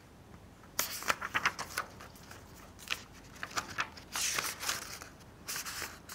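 Sheets of paper and the pages of a spiral-bound booklet being handled and turned on a table: irregular bursts of rustling and crackling, starting about a second in.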